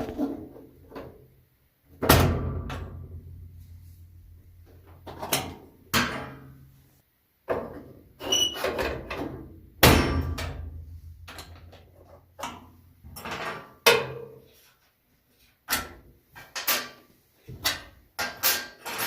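Metal pry tool knocking and clanking against a Kenmore 70 series washing machine's sheet-metal cabinet while prying out the clips that hold the cabinet: a dozen or so sharp knocks at uneven intervals. The panel rings briefly after the two loudest, about two seconds in and about ten seconds in.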